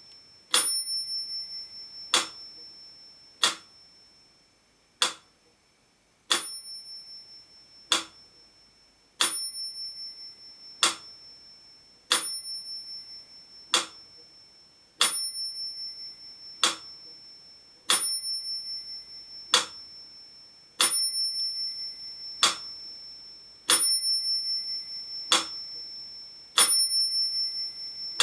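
Mechanical pendulum metronome ticking at 40 beats a minute, one sharp tick about every one and a half seconds, with its bell ringing on every second beat and fading slowly. For a few beats in the first several seconds the ticks come without the bell.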